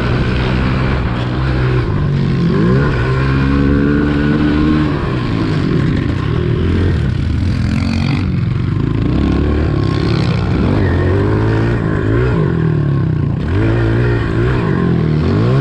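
Small four-stroke pit bike engine being ridden on a dirt track, revving up and dropping back over and over as the rider works the throttle and gears.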